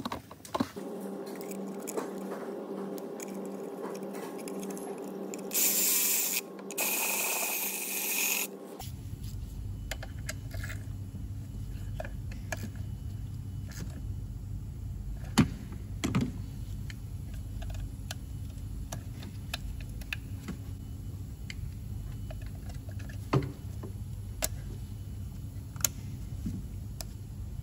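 Gloved hands refitting a diesel fuel filter housing and its pipe connectors: light clicks, scrapes and knocks of plastic parts, with a few sharper clicks later on. About six seconds in come two hissing bursts of a second or two each, the loudest sounds here.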